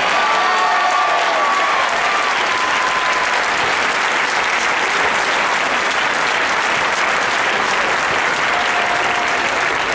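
A large crowd applauding steadily, with a few voices calling out over the clapping in the first seconds.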